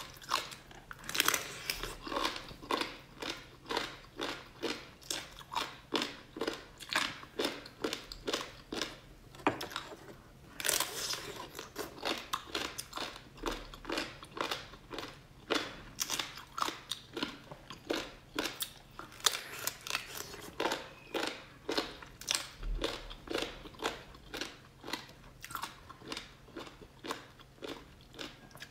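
Close-miked chewing and biting of a gelatinous braised meat, a steady run of short chewing sounds about two a second, with a louder bite about ten seconds in.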